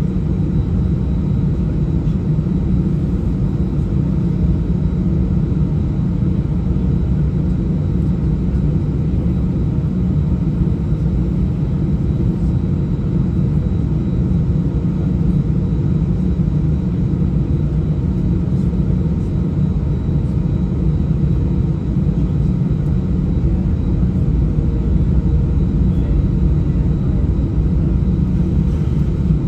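Airbus A319 jet engines at taxi power heard from inside the cabin: a steady low rumble with a faint thin whine above it, unchanging throughout.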